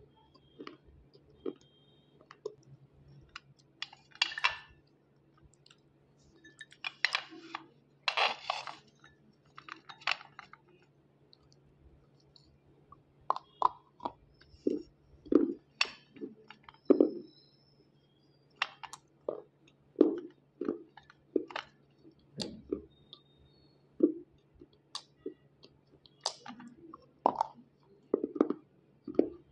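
Close crunching and crisp clicking of white unshaped slate pencil chunks being bitten and chewed, some dipped in roasted multani mitti (fuller's earth) paste. A few larger, longer crunches come in the first ten seconds, then shorter separate bites and chews about a second apart.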